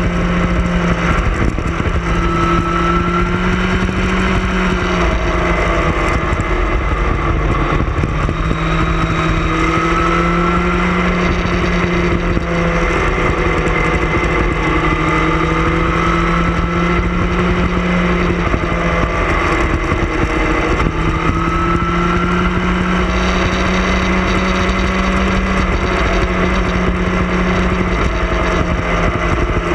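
Sport motorcycle engine running at road speed, its note dropping and rising a few times with throttle and gear changes through the curves, with heavy wind rumble over the bike-mounted microphone.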